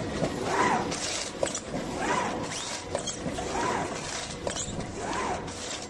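Automatic cartoning machine running in a regular cycle, each stroke about every one and a half seconds making a short rising-and-falling sound, with clicks and rattles between.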